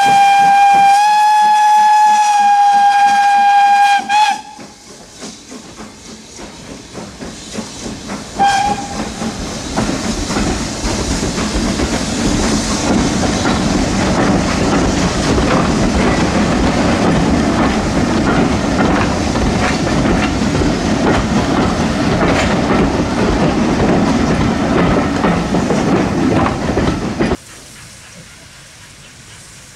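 Steam locomotive whistle blown in one long blast for about four seconds. Then comes a locomotive working, with regular beats building and a short whistle toot. It gives way to a loud passing train, wheels clattering over the rail joints, which cuts off abruptly near the end.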